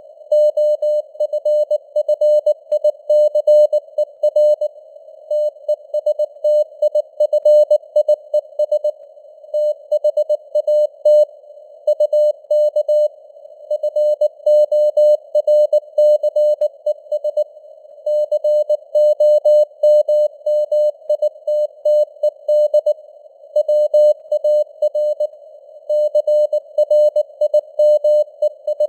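Morse code sent as a single tone of about 600 Hz, keyed on and off in dots and dashes at 19 words per minute, over a narrow band of simulated radio noise hiss. The signal strength rises and falls slightly (simulated fading, QSB).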